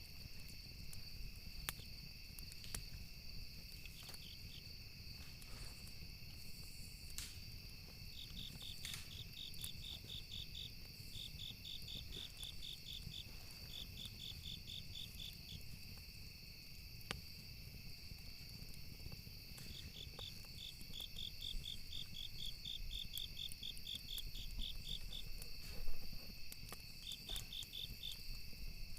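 Crickets chirping in runs of rapid, even pulses over a steady high insect trill, with occasional sharp campfire crackles and pops, the loudest pop near the end.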